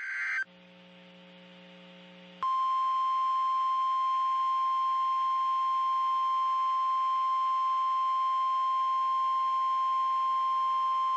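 NOAA Weather Radio emergency alert: the tail of a raspy SAME digital header burst, a short pause with faint radio hiss, then the 1050 Hz warning alarm tone. The tone is a single steady beep held about nine seconds, signalling an Emergency Alert System activation for a warning.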